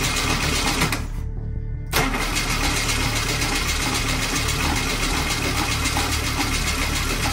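Starter motor of a 1967 VW Type 3 air-cooled flat-four cranking the engine with the ignition off, to build fuel and oil pressure: a short burst, a pause of under a second, then a long steady crank of about six seconds.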